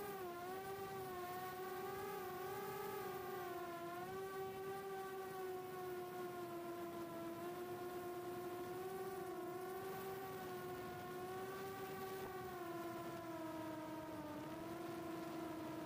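HGLRC 1303.5 4500kv brushless motors and props of a 4-inch long-range FPV quadcopter whining steadily in cruise, picked up by its onboard camera. The pitch wavers slightly with throttle and dips briefly near the end.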